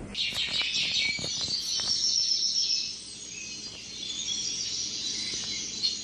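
Dense, high-pitched chirping and twittering, like small birds, that eases for a moment about halfway through.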